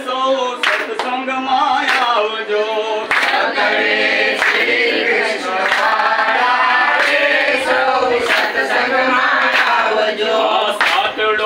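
A group of men and women singing a Gujarati devotional bhajan together without instruments, with scattered hand claps among the voices.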